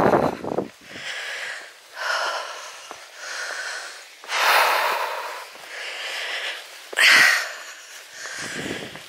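Heavy panting of a hiker climbing a steep hill under a full rucksack: loud breaths in and out, roughly one a second, the strongest about four and seven seconds in.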